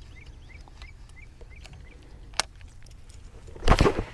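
Small birds chirping faintly in a quick repeating series, a single sharp click about two and a half seconds in, and a brief loud thump-like rush near the end.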